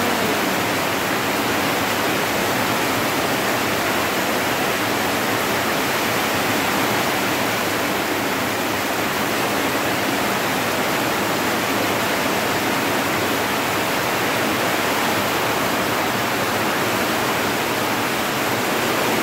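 Heavy rain falling hard, a steady even hiss.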